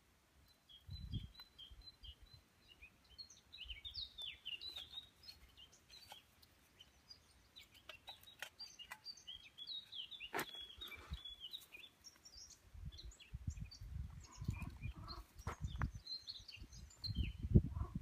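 Small birds chirping and singing with many short high chirps, joined by a few sharp clicks and, in the last few seconds, low rumbling bursts.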